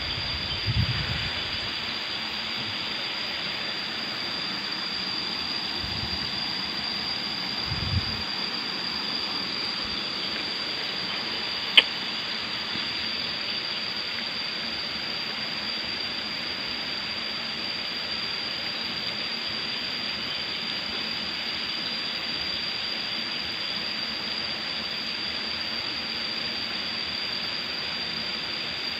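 River water rushing steadily, with a few low thumps in the first eight seconds and a single sharp click about twelve seconds in.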